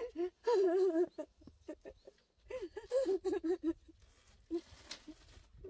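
A person crying: high, wavering sobs in two bursts, one at the start and one about two and a half seconds in.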